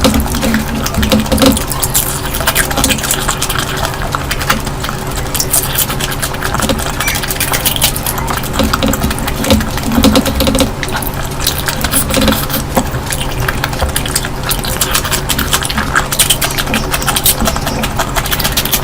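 Close-miked eating sounds: a steady run of wet clicks, smacks and crackles of chewing and of food worked on a plate, over a steady low hum.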